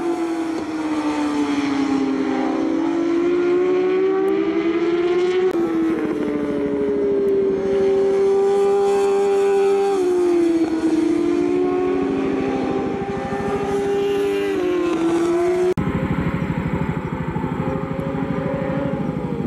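J-GP2 racing motorcycle engines at high revs through a long corner, more than one bike at once. The engine notes sink and climb again and cross each other, with sudden steps in pitch.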